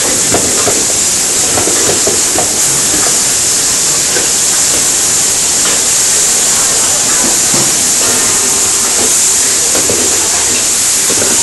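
Beef cutlets searing in a very hot pan over a gas flame: a loud, steady sizzling hiss.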